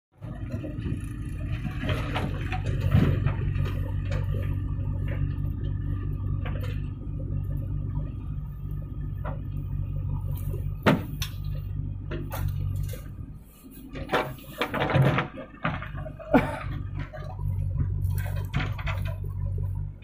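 JCB 3DX backhoe loader's four-cylinder diesel engine running steadily under hydraulic load as the backhoe digs and swings. The engine drops briefly about two-thirds through, and several sharp knocks and the rush of tipped soil come from the bucket working.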